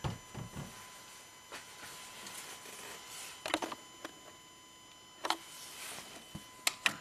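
Quiet close-up handling noises: a few short rustles and light clicks over a faint steady high tone, with a pair of sharper clicks near the end.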